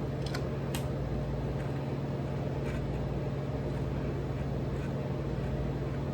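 A potato chip being chewed, with a few crisp crunches in the first second and one more near the middle. Under it runs a steady low mechanical hum.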